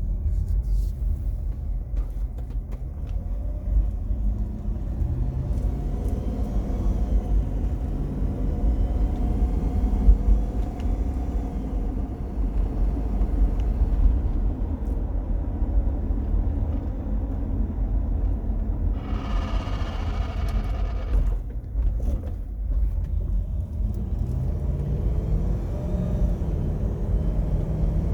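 Cabin noise of a 2004 Jeep Grand Cherokee WJ on the move: a steady low road and engine rumble, with the engine note rising twice as it pulls. About two-thirds through, a brief higher-pitched tonal sound lasts a couple of seconds. The car has an unidentified noise, heard only inside, that the owner likens to something touching the front dash; brakes, suspension, differential and driveshaft have been checked and found fine.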